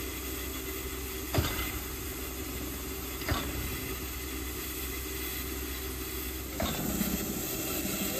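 Standing steam tank locomotive 86 1333-3 hissing steadily as it leaks steam at rest. Two sharp knocks come about a second and a half and three seconds in, and near the end a louder rush of noise sets in.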